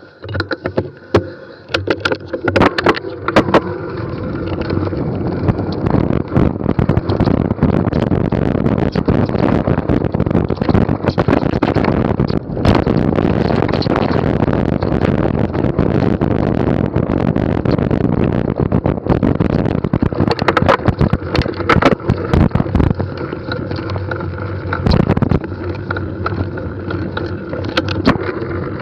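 NS Bikes mountain bike descending a rough dirt trail: a steady loud rush of tyre noise with frequent sharp clatters and knocks from the bike over the bumps. It starts quieter, with scattered knocks, and becomes a continuous rush about four seconds in.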